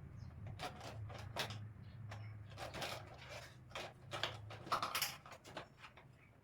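Shoe rack parts being handled and fitted together: a run of irregular clicks, knocks and rustles, loudest about five seconds in, over a low steady hum.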